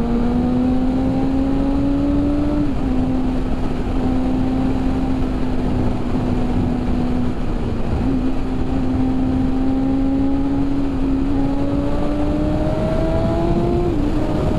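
BMW S1000RR's inline-four engine pulling under way at speed, its note climbing slowly, with a sharp drop in pitch about three seconds in and another near the end as it shifts up. Wind rush runs under the engine.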